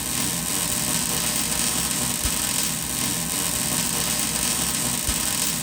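A power tool running steadily, with a constant hiss and a low hum.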